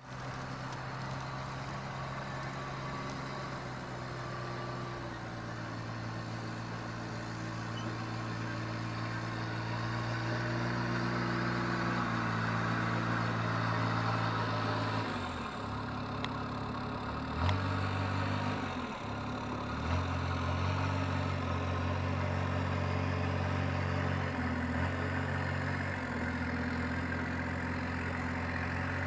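Kubota RTV1100's turbocharged three-cylinder diesel engine running. The pitch is steady at first, then dips and shifts several times in the second half, with a sharp knock about midway and a faint high whine that falls and rises.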